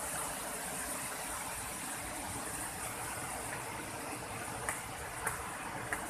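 Footsteps climbing concrete stairs: three sharp steps about half a second apart near the end, over a steady rushing background hiss.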